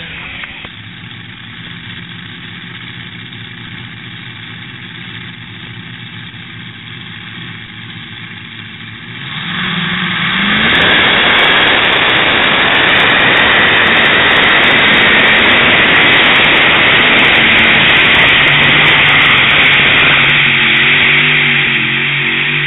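Tractor-pulling tractor engine running steadily at a distance. About nine seconds in it revs up and stays at full throttle under load, very loud and close, until the sound cuts off abruptly near the end. The engine is loud enough to distort the recording.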